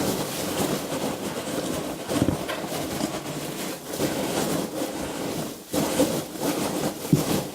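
Packing material in a shipping box rustling and crinkling as a hand digs through it for a remaining item, with a few short knocks.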